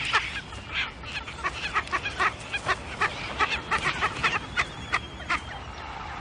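Frigatebirds calling in a dispute at the nest: a rapid, irregular series of short, harsh calls, several a second.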